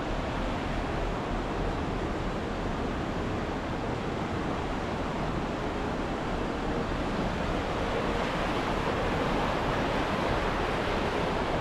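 Whitewater river rapids rushing: a steady, even rush of water, growing a little louder near the end.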